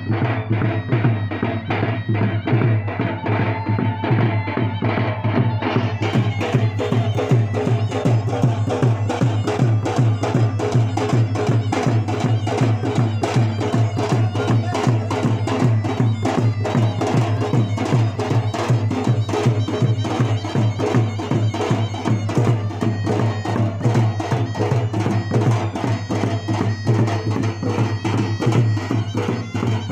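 Traditional folk music played live, led by fast, steady drumming on a barrel drum.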